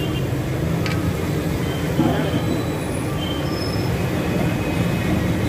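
Steady low rumbling roar and hiss of a busy street-food stall where chicken pakoda is deep-frying in a large kadai of oil, with voices faintly in the background.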